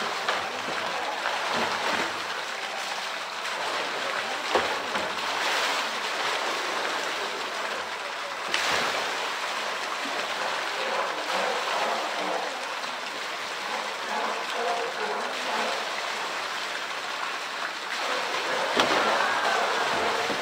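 Water pouring steadily into a pool, with splashing as a polar bear plays with a blue plastic barrel in the water, and the barrel knocking against the pool's ledge a few times.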